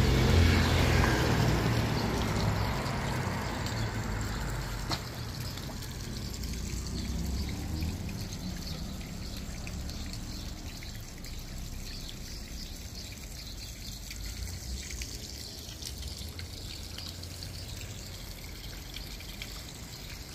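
Water trickling steadily in a garden pond, slowly getting quieter, as the tail of background music dies away at the very start.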